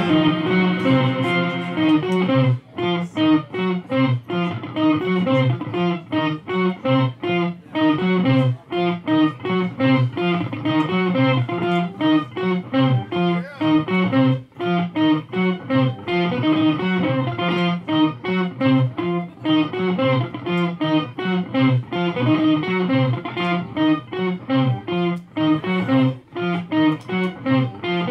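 Telecaster-style electric guitar played live, a quick repeating pattern of picked notes going on without a break.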